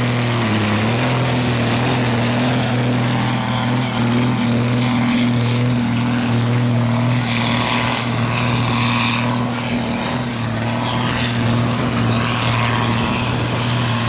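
Farm tractor's diesel engine running flat out under heavy load while pulling a weight-transfer sled: a steady deep drone that sags briefly about half a second in, then holds its pitch.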